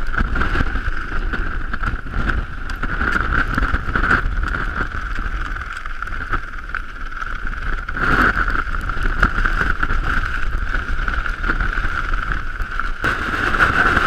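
Strong wind buffeting the camera's microphone: a low rumbling roar with a steady high whistle running through it, and a stronger gust about eight seconds in.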